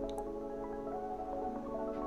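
Soft background music: a slow melody of held notes changing step by step.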